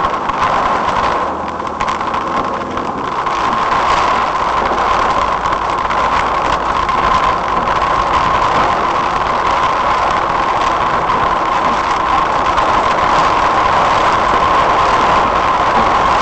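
A car driving through rain, heard from inside the cabin: a steady rush of road and engine noise with a steady hum, and many small taps of raindrops on the windscreen.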